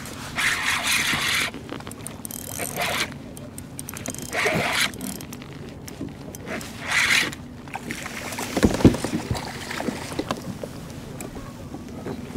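Kayak fishing handling noise: a spinning reel being cranked and water against the kayak hull, with a few short bursts of rushing noise and a louder knock about nine seconds in, followed by small clicks.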